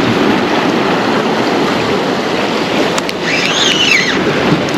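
Sea surf washing against a rocky shore, a steady loud rush with wind on the microphone. A short high call rising and falling is heard about three seconds in.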